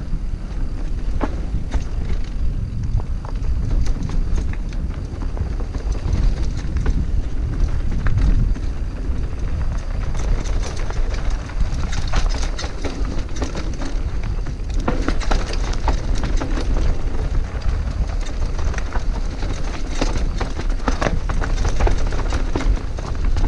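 Scott Genius full-suspension mountain bike descending a dirt singletrack at speed: steady wind rumble on the helmet-mounted microphone, tyre noise on the dirt, and frequent rattling knocks from the bike over bumps, busiest about halfway through and again near the end.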